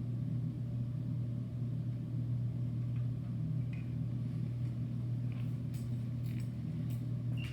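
A steady low hum, with a few faint light clicks in the second half.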